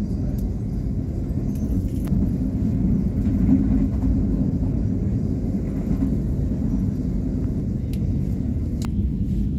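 Steady low rumble of a passenger train running along the track, heard from inside the carriage, with a couple of faint clicks near the end.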